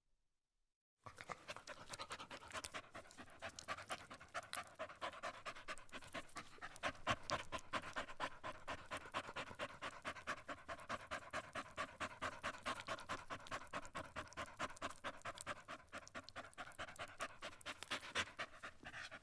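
A dog panting rapidly and steadily, about four to five breaths a second, starting about a second in.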